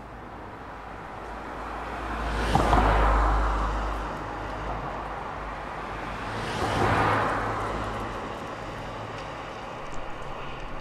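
Two cars driving past one after the other, each a swell of engine and tyre noise that rises and fades, the first about three seconds in and the second about seven seconds in.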